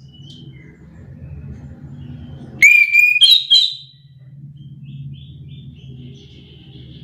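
Chestnut-capped thrush (anis kembang) calling: a loud, brief burst of rising, ringing notes about two and a half seconds in, followed by soft, high twittering. A low steady hum runs underneath.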